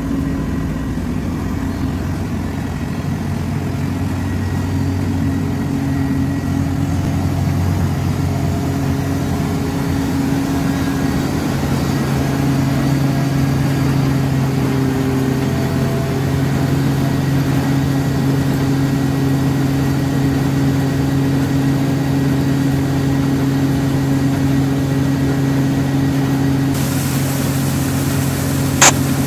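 Tractor engine running steadily at a constant speed, with one sharp click near the end.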